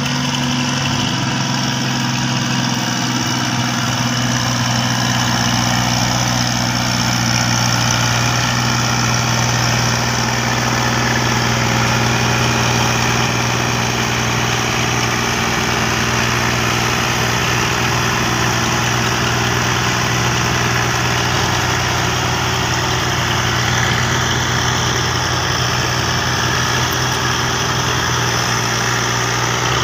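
Diesel tractor engine running at a steady speed, an even low drone that holds one pitch throughout, while the tractor hauls a sand-loaded trolley up a bank.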